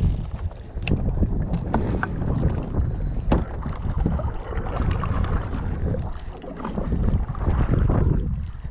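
Wind buffeting the microphone while a kayak is paddled, with paddle strokes splashing in the water. A few sharp knocks sound in the first few seconds.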